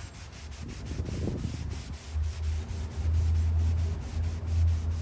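Scotch-Brite scouring pad scrubbing a wet porcelain sink coated with Bar Keepers Friend cleanser, an uneven rubbing that surges and eases with the strokes.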